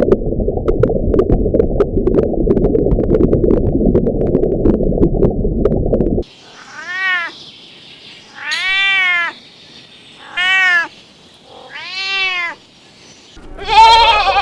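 A domestic cat meowing four times, each meow rising then falling in pitch and spaced about two seconds apart. Before the meows, a loud, dense low rumble with faint clicks stops abruptly about six seconds in. Just before the end, a louder animal call begins.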